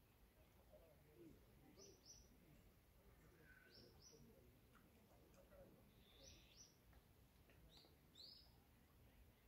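Near silence with faint bird chirps: about four pairs of quick high chirps, a couple of seconds apart.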